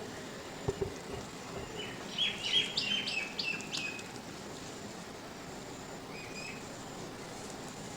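Small birds chirping outdoors: a quick run of chirps about two to four seconds in and a shorter call near six seconds, over a steady background hiss, with a couple of soft low thumps about a second in.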